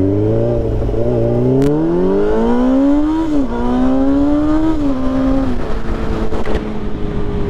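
Sport bike engine accelerating hard through the gears: the pitch climbs, drops at an upshift about three seconds in, climbs again and drops at a second upshift near five seconds, then holds steady at cruising speed with wind rushing over the rider-mounted microphone.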